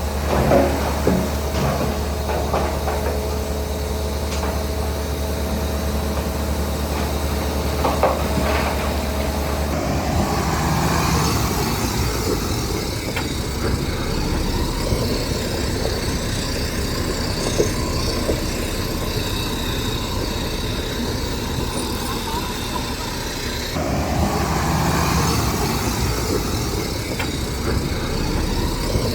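Heavy diesel machinery running steadily, with a few sharp metallic knocks near the start and about eight seconds in. The engine note changes abruptly twice.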